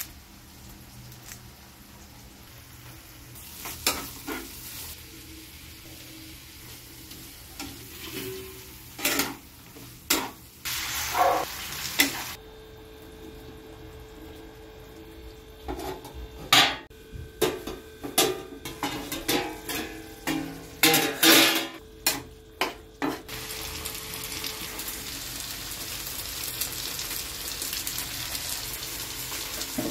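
Curry sizzling in a non-stick frying pan on a gas stove, with a spatula scraping and knocking against the pan as it is stirred. The strokes come thickest in the middle of the stretch, and the sizzle grows louder near the end.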